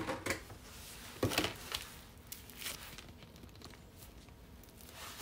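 Faint handling sounds in a kitchen: a few light clicks and rustles as a plastic piping bag is picked up, with one louder knock about a second in.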